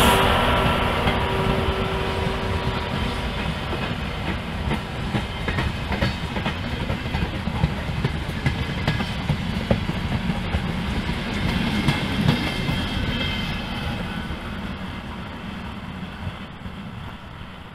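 Passenger train of vintage coaches behind an electric locomotive passing close by: steady wheel rumble with the clickety-clack of wheels over rail joints, fading as the train moves away over the last few seconds. The tail of a horn blast dies away at the start.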